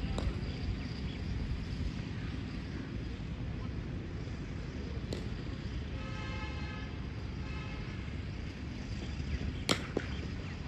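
Steady low rumble of wind on the microphone, with a few sharp clicks, the loudest near the end, and a faint pitched sound lasting about a second and a half a little past the middle.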